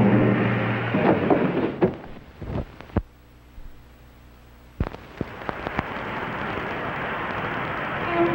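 Old film soundtrack. Dramatic music drops away into a scatter of sharp pops and crackles, goes nearly quiet for a couple of seconds, then gives a few more pops. A steady rocketship engine hum then builds up toward the end.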